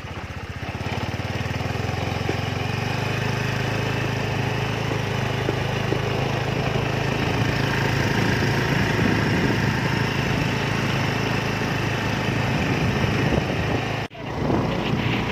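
Vehicle engine running steadily on the move: a low hum with road and wind noise that builds over the first couple of seconds, broken by a brief sudden drop near the end.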